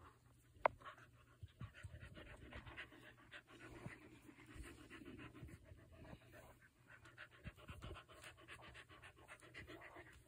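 A dog panting softly while being petted, with one short sharp click about a second in.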